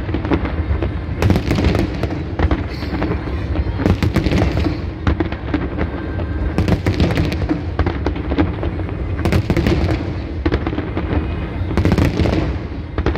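Aerial fireworks display: shells bursting in loud booms every second or two over a continuous rumble.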